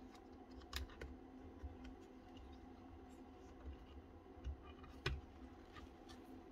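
Faint clicks and taps of cordless power-tool parts and plastic housing being handled on a workbench, the sharpest about a second in and about five seconds in, over a steady low hum.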